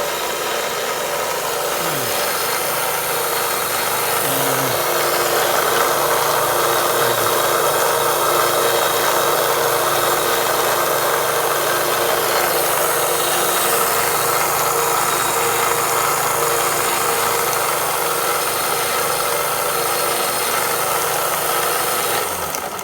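Harbor Freight 1-inch by 30-inch belt sander running steadily, its coarse belt grinding against scrap plywood: a constant motor whine over a rasping noise. The sander cuts off and winds down near the end.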